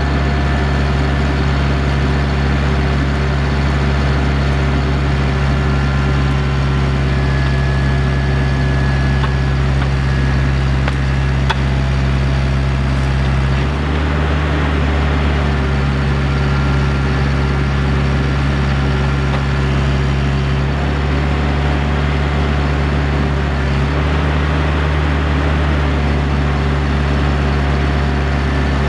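Heavy equipment engine running steadily, with small step changes in engine speed a few times as the machine works.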